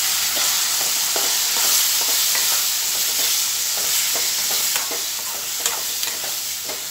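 Chopped salt-cured lemons sizzling in hot oil tempered with mustard seeds and chilli powder in an aluminium kadai, while a spoon stirs them; a steady hiss with scattered small clicks.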